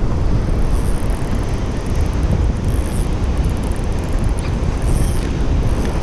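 Strong wind buffeting the microphone, a steady heavy rumble, with the wash of sea surf behind it.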